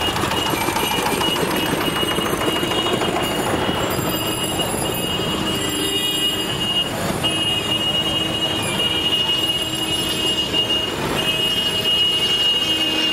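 Busy market-street noise heard from a moving cycle rickshaw: a steady jumble of traffic and crowd sound, with a thin high squeal running through it that breaks off briefly a few times.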